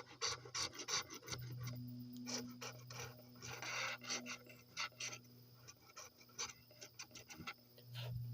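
A scratch-off lottery ticket being scratched: quick, irregular scraping strokes rubbing the coating off the card.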